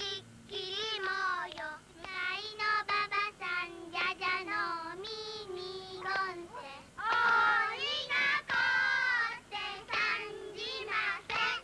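Young girls singing a children's game song together in short melodic phrases with brief breaths between them.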